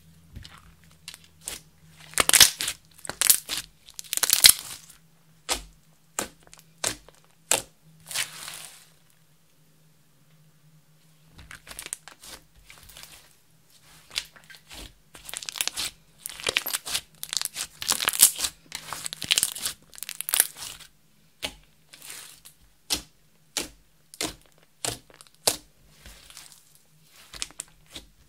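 Clear slime with makeup and glitter mixed in, stretched, folded and pressed by hand: sticky crackling and sharp pops in irregular bursts, with a quiet pause of about two seconds midway.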